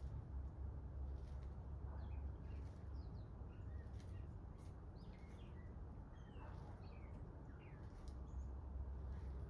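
2016 Amana heat pump running in heat mode with a low steady hum, while birds chirp in short high calls over it.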